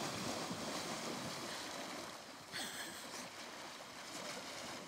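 Several people splashing as they wade and run out through shallow lake water, the splashing fading as they move away, with one brief louder splash about two and a half seconds in.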